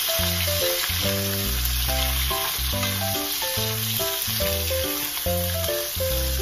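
Raw chicken pieces sizzling in a hot nonstick frying pan as they are stirred with a wooden spoon, a steady hiss of frying. Background music with a melody and a bass line plays over it.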